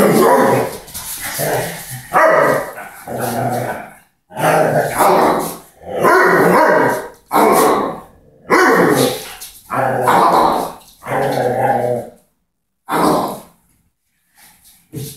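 Doberman growling and barking in play with a rubber ball held in its mouth, in about nine loud bursts of roughly a second each.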